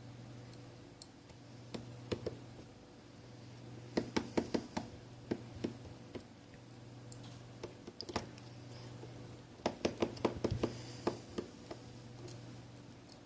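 Scattered small clicks and taps of a magnet-tipped screwdriver working the small screws out of a Samsung Galaxy S Duos S7562 phone. The clicks come in bunches, about four seconds in, around eight seconds and around ten seconds.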